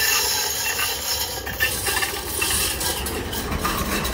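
Electric tram passing: a steady rolling rumble and hiss, the sound coming from above and below at once, from the overhead wire and the wheels on the rails.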